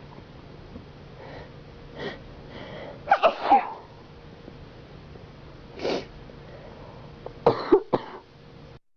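A person sneezing several times, loudest about three seconds in and again near the end, with a cough among the last bursts. A faint steady hum runs underneath, and the sound cuts off suddenly just before the end.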